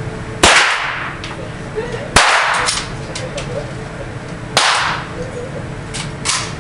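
Handgun shots fired by several shooters in a closed shooting range: three loud shots about two seconds apart, with fainter shots from neighbouring lanes in between, each echoing briefly in the room.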